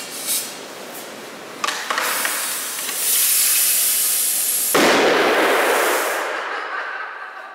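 Compressed air hissing into a plastic water bottle from an air-compressor hose, loud from about three seconds in, until the bottle bursts with a sudden bang about five seconds in. The hiss of air rushing out of the open hose follows and fades away over the next two seconds.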